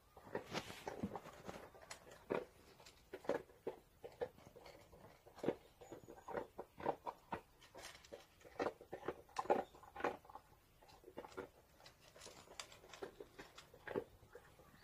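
A dog eating from a bowl: irregular chewing and clicking mouth sounds, several a second.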